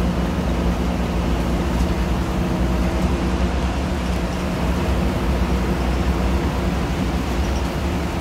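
Bus engine running with road noise, heard from inside the passenger cabin: a steady drone with a low hum underneath.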